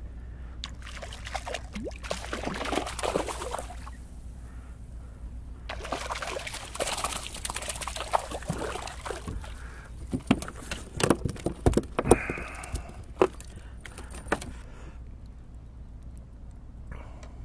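Water splashing against the side of a kayak as a hooked mackerel is brought in by hand, in two spells. Then a run of sharp knocks and clatters as the fish and tackle are handled in the kayak.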